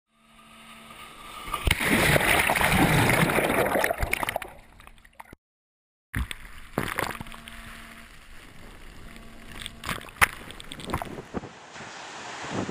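Seawater sloshing and gurgling around a camera dipped at the surface of the surf. It swells to a loud rush for a couple of seconds, fades and cuts out about five seconds in. After a short gap, quieter splashing resumes with several sharp knocks.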